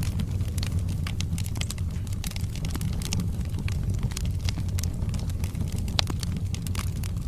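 Wood fire burning in a fireplace: irregular sharp crackles and pops of burning logs over a steady low rumble of the flames.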